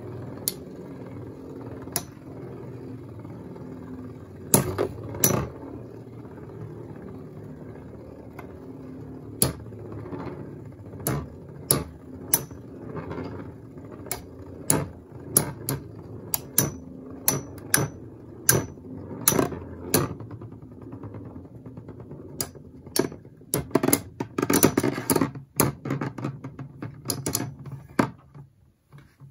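Two metal Beyblade spinning tops, Rock Leone 145WB and Lightning L-Drago 100HF, whir steadily on a clear plastic stadium floor and clash again and again with sharp metallic clicks, coming thick and fast about 24 seconds in. The whirring stops near the end as a hand picks the tops up.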